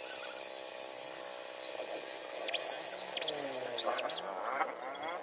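Electric drill with a round-headed bit whining as it bores dimples into a wooden slab, its pitch wavering and dipping as the bit bites into the wood. It stops briefly about two and a half seconds in, runs again, and cuts off about four seconds in.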